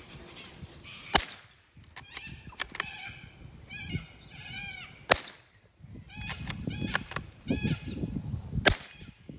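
Three single shots from a .22 rifle, about a second in, about five seconds in and near the end, each a sharp crack with a short ring after it. Between the shots, an animal calls in quick runs of short notes.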